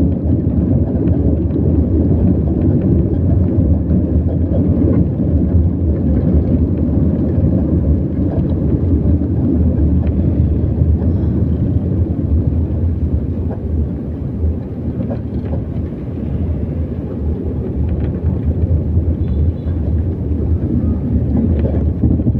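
Steady, loud low rumble of a vehicle driving along a road, with engine, road and wind noise blended together.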